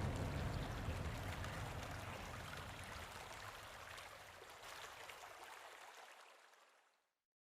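Running water with fine drips and trickles, fading steadily away and ending in silence about seven seconds in.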